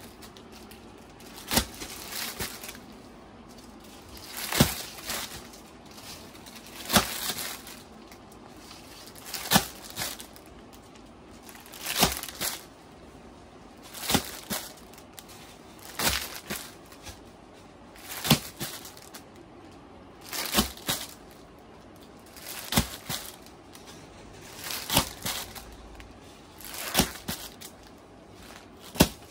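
Plastic packaging of bed sheets crinkling as packs are handled one after another, a sharp crinkle about every two seconds.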